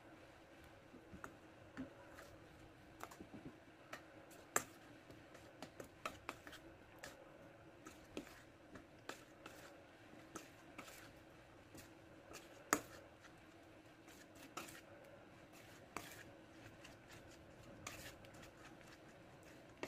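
Metal spoon stirring melting chocolate in a stainless steel bowl, scraping and knocking against the bowl's side in irregular sharp clicks, one louder knock about two-thirds of the way through, over a faint steady hum.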